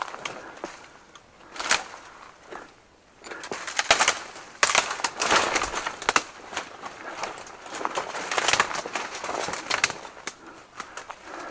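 Dry vegetation rustling and crackling in irregular bursts, the sound of movement on foot through reeds or grass.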